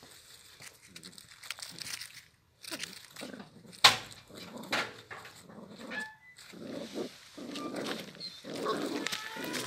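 Two puppies scuffling in dry leaves while tugging at a leash strap, giving short high-pitched yips and whines, most of them in the second half. A single sharp knock about four seconds in is the loudest sound.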